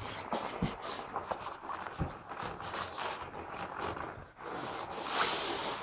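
April Rain bib rain trousers rustling and swishing as the stiff rainwear legs rub and flex while walking, with a few dull footsteps of rubber boots on concrete. The rustling grows louder near the end.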